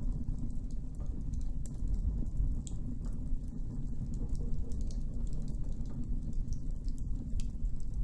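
Campfire burning: scattered small crackles and pops over a low, steady rumble.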